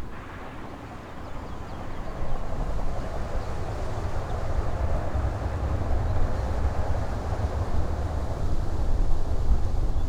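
Jet airliner engine noise: a low rumble with a broad rushing sound above it, growing louder from about two seconds in.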